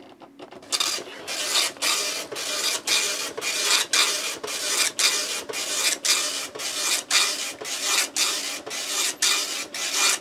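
Oki Microline 280 nine-pin dot-matrix printer printing its character set continuously in self-test mode with the cover on. A rasping, buzzing print noise starts about half a second in, broken by short pauses about three times a second. It is still a bit loud even with the lid on.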